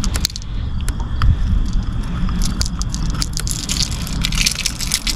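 A steady low rumble with scattered small clicks and scrapes: a lipless crankbait's treble hooks being worked free of a largemouth bass's mouth.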